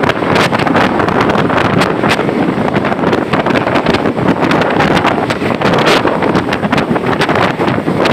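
An intercity bus travelling in heavy rain: steady road and running noise, with wind on the microphone and many small irregular taps of rain.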